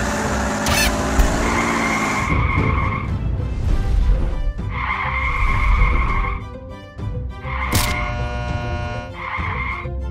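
Cartoon soundtrack: a low truck-engine rumble under background music that comes and goes in steady high-pitched phrases, with a couple of sharp hits.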